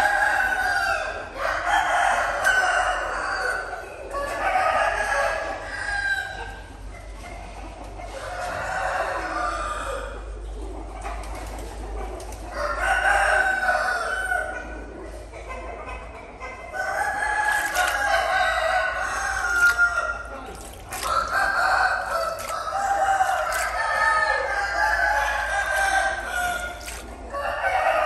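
Birds calling over and over, like domestic fowl crowing and clucking. Each call lasts a second or two and follows the last after a short gap.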